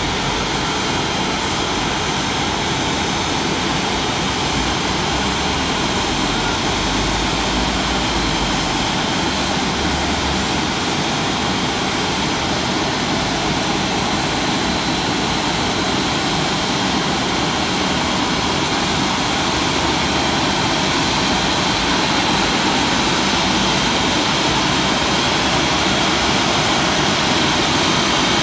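Automatic gantry car wash running, its rotating brushes working over a van: a steady, loud machine-and-water noise that grows a little louder toward the end as the gantry comes closer.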